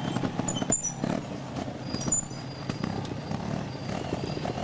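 Two-stroke trial motorcycle engine running at low revs, an uneven putter of pops as the bike is eased up over rocks.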